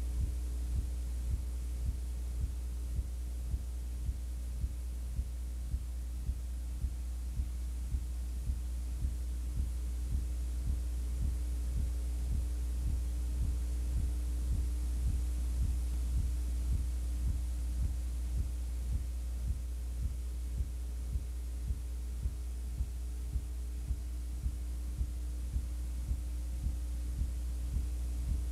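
Steady low electrical hum with a soft, even pulse about twice a second, typical of noise on an old videotape's audio track. No game or crowd sound is heard.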